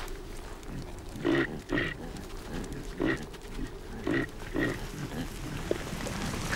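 Caribou grunting in a grazing herd: five short grunts, two close together a little over a second in, one about three seconds in, and two more close together about four seconds in.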